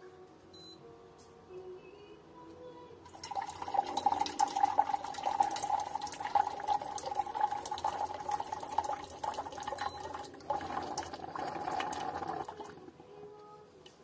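An instant hot water dispenser pouring a thin stream of water into a cup. The pour starts about three seconds in and stops shortly before the end.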